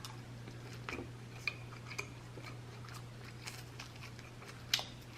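Quiet eating sounds: soft chewing with small scattered clicks of utensils or dishes, one sharper click near the end, over a steady low hum.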